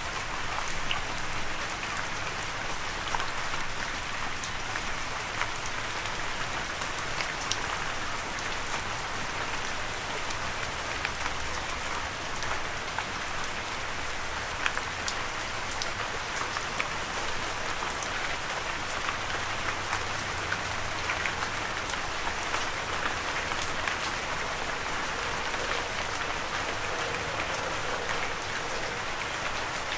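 Steady rain falling, a dense even hiss dotted with the small ticks of individual drops striking a surface.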